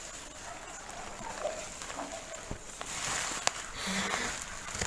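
Packaging being handled: rustling and crinkling with a couple of sharp clicks, most dense a few seconds in.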